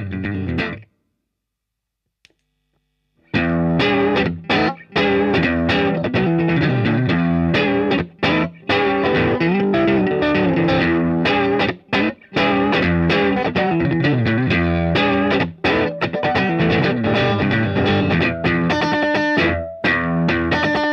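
Electric guitar played clean through the Ant Craft Camponotus overdrive pedal in true bypass, stopping about a second in. After a couple of seconds of silence it starts again with the pedal switched on in drive mode at low gain, playing a lightly overdriven riff of chords and single notes with short pauses.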